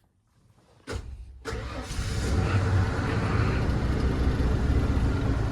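A click about a second in, then the 1994 Ford F250's 4.9-litre inline-six cranks briefly, catches and settles into a steady idle. It is starting this time despite its intermittent no-crank fault, which the owner puts down to a failing clutch safety switch.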